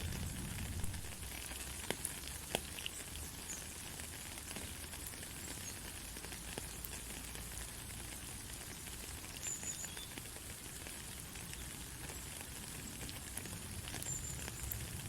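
Steady rain falling, an even hiss with a few sharper drip ticks, the first about a second in and a couple more around two seconds in.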